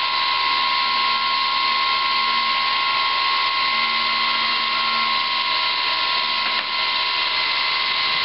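Brushless electric motor of a ParkZone Super Decathlon R/C plane spinning a Master Airscrew 8x6 three-blade propeller at just over half throttle: a steady high whine over the rush of the prop. It is a static bench run, drawing about 3.2 amps.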